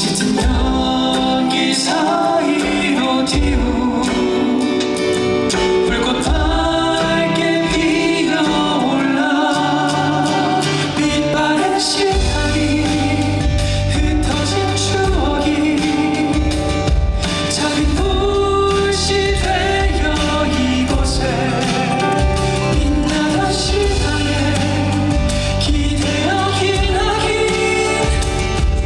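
Live song performance: singing over strummed acoustic guitar, with a bass part coming in about twelve seconds in.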